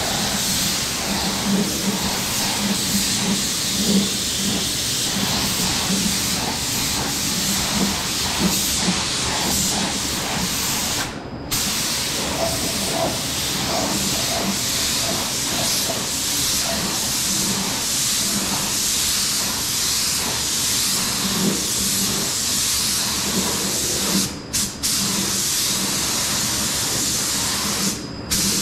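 Air-powered paint spray gun hissing steadily as it sprays epoxy top coat, cutting out briefly three times.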